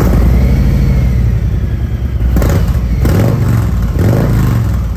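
Harley-Davidson Low Rider S V-twin running loudly through TAB Performance mufflers, then blipped three times in quick succession from about halfway through.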